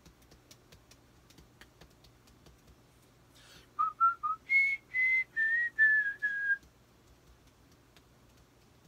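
A man whistling a short tune: three quick low notes, then five longer, higher notes stepping down in pitch, lasting about three seconds in the middle of the clip.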